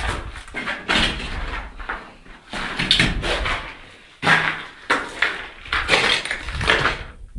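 Irregular knocks, scrapes and crunches of footsteps on rubble and debris in a small burned-out room, mixed with handling noise from the handheld camera.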